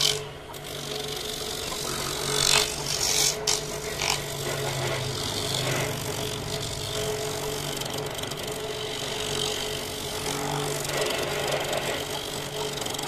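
Small electric motor, about a quarter horsepower, running a homemade coconut grater, its spinning grating head rasping steadily against coconut flesh pressed onto it. A few sharp knocks sound in the first few seconds.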